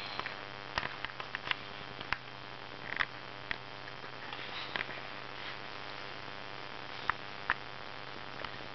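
Hands working a wire snare among twigs and forest litter: scattered light clicks and ticks, a few at a time, over a steady low hiss.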